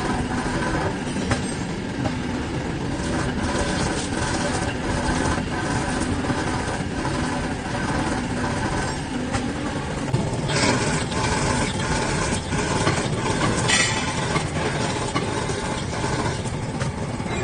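BOSM DS1020 CNC drilling machine drilling small holes through a steel sieve plate under coolant spray: a steady machine noise of the spindle and drill cutting. About ten seconds in the sound turns brighter, and a few seconds later there is one sharp click.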